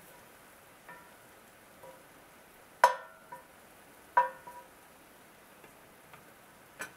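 Wooden spatula knocking against a Lodge cast iron skillet while stir-frying noodles: a few sharp knocks, the two loudest about three and four seconds in, each ringing briefly. A faint frying sizzle runs underneath.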